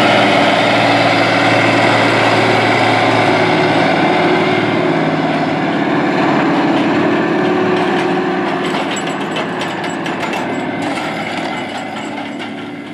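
Allis-Chalmers 4W-220 articulated four-wheel-drive tractor's diesel engine running steadily under load as it pulls a Kinze 3600 corn planter past, fading as the tractor moves away. In the second half there is light clicking and rattling from the planter's row units going by.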